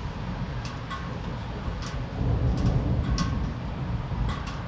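Low rolling rumble of thunder that swells about two seconds in, over steady rain, with irregular water drops tapping on a hard surface.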